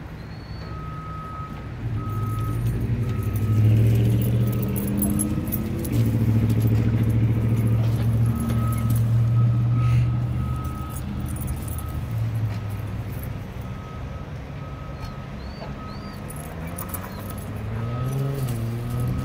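Diesel engine of heavy construction equipment running under load, louder about two seconds in and rising in pitch near the end as it revs up, with a backup alarm beeping steadily about once a second.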